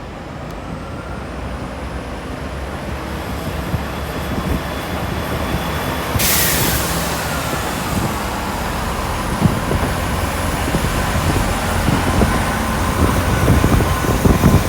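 Class 166 diesel multiple unit pulling away, its diesel engine rumble building steadily louder. About six seconds in there is a sudden sharp hiss of air that dies away within a second.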